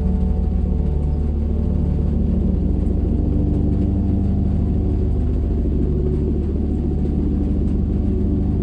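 Ambient background music: held low, droning tones layered over one another, with no beat.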